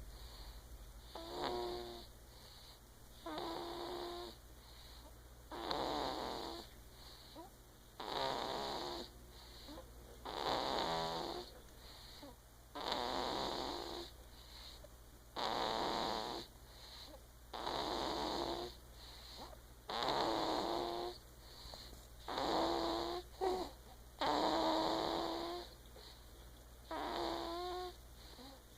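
Someone asleep snoring steadily, one snore about every two and a half seconds, several of them with a clear pitched tone.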